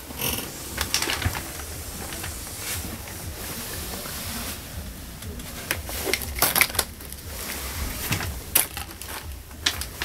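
Irregular clicking and rustling of hands handling the controls and a paper tag around the steering column inside a truck cab, with a cluster of sharper clicks about six to seven seconds in.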